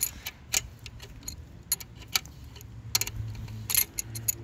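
Scattered metallic clicks and clinks from an adjustable wrench knocking against the steel injector puller tool on the engine's cylinder head as it is fitted and turned to back out the loosened fuel injectors.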